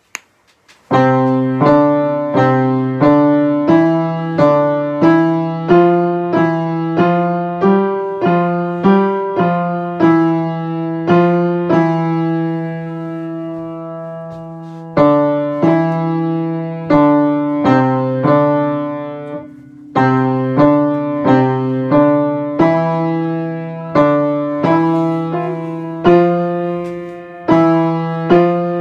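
Piano played slowly: notes and chords struck about once a second, each left to ring and fade. A long held chord comes around the middle, and a short pause comes before the playing picks up again.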